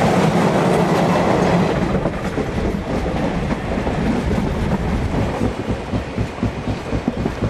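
Train of an NRZ class 14A Beyer Garratt steam locomotive: for about two seconds, coaches rolling past close by in a dense, even rush, then the train as heard from aboard, with a steady rhythm of about three beats a second.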